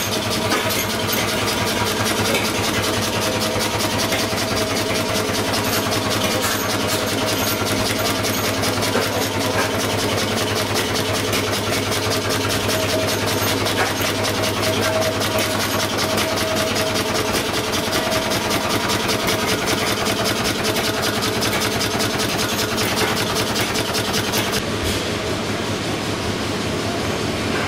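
Vintage stationary diesel engines running steadily, with a fast, even knocking beat over a constant hum.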